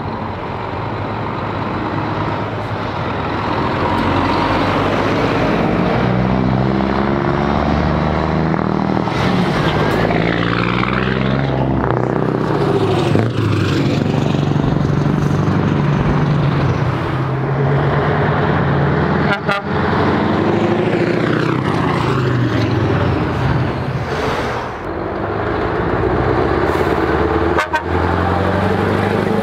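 Several heavy trucks with loud exhausts driving past one after another, their deep engine note rising and falling as they accelerate and change gear. Horn toots sound among them.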